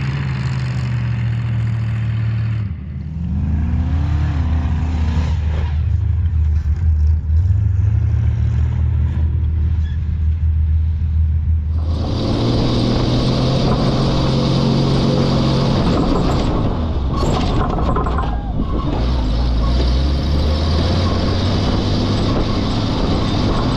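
A vehicle engine runs steadily at a low, even pitch, with a short rising and falling whine a few seconds in. About halfway through, this becomes a vintage military wrecker truck's engine driving over sand dunes, heard from the cab with a steady hiss of wind and driving noise.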